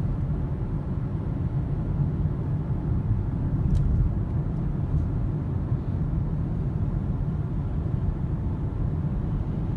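Car moving along a highway: steady low road and engine rumble.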